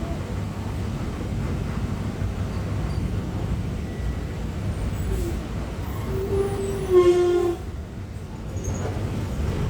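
Iveco S170 bus's FPT NEF 6 inline-six diesel engine running with a steady low rumble. A short horn-like tone sounds about seven seconds in and is the loudest moment.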